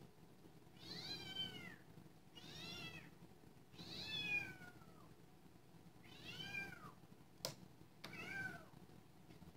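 A very young kitten, about three or four weeks old, fussing in the background with five high, faint meows, each about a second long and rising then falling in pitch. A single sharp click comes about three-quarters of the way through.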